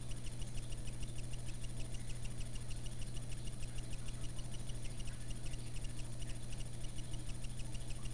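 A steady low electrical hum with a rapid, even ticking about seven times a second over it.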